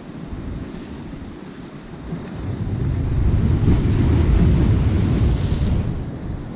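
Waves breaking and washing on a rocky shore, mixed with side wind buffeting the microphone. A surge of surf builds from about two seconds in, is loudest for a few seconds with a bright hiss, then falls away before the end.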